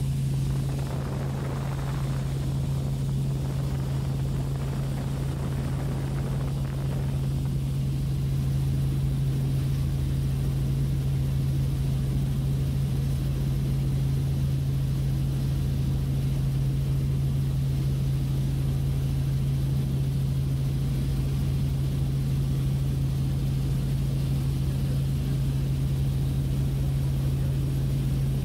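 Helicopter in flight: the steady drone of its rotor and engine, a strong, unchanging low hum.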